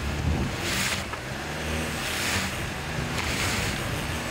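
A car engine running steadily under a rushing hiss that swells about every second and a half, like wind buffeting the microphone.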